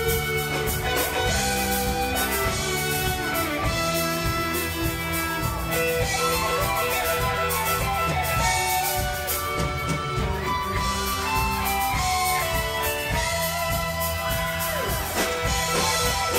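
Live folk-rock band playing an instrumental passage: electric guitar and fiddle over bass guitar and drum kit.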